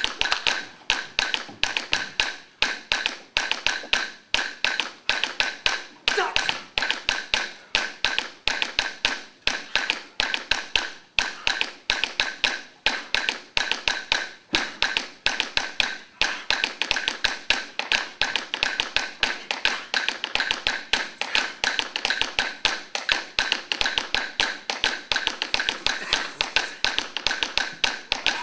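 Percussion music: fast, even taps and clicks, several a second, with a ringing tone on top and no melody heard.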